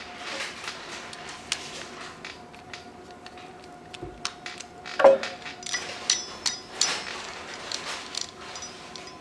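Small metal clicks and clinks of a hand can opener being reassembled, a screwdriver driving the screw back into its gear and cutting-wheel mechanism. There is one sharp metal knock about five seconds in, then a run of quick clicks.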